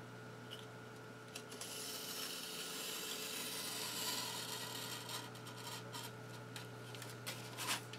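Snap-off utility knife blade drawn along a steel ruler, scoring foamboard: a faint, steady scratchy hiss from about a second and a half in to about five seconds, then a few light clicks and scrapes. It is a shallow cut meant to go through the paper face but not all the way through the board.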